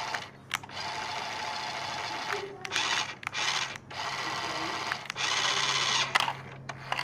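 Small electric motor and plastic gears of a toy RC cement mixer truck whirring, starting and stopping several times in runs of about half a second to two seconds, with sharp clicks between the runs.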